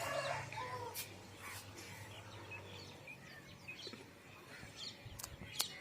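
Faint, scattered bird chirps over low background noise, with a low steady hum through the first half and a few light clicks.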